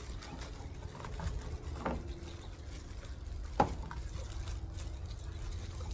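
Items being handled while a box is unpacked: a soft knock about two seconds in and a single sharp click a little past halfway, over a low steady rumble.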